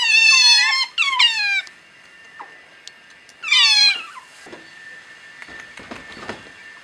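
Otters calling: three loud, high-pitched squeals in the first four seconds, each falling in pitch.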